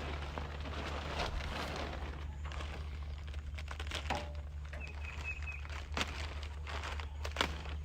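A steady low hum, with a few sharp knocks and clanks scattered through it and a quick run of high chirps about five seconds in.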